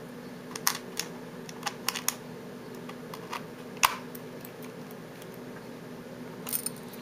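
Light, scattered clicks and taps of a small screwdriver and tiny screws against the plastic case of an Asus UL80V laptop as its hard-drive cover is screwed back on. The loudest click comes just before four seconds in, over a faint steady hum.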